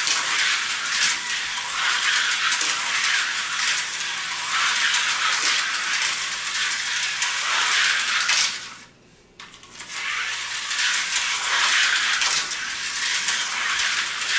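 Vintage 1984 Tyco HO slot cars racing around a plastic track, making a continuous high-pitched buzzing rattle as they run on the rails. About nine seconds in it cuts out almost completely for about a second, then starts again.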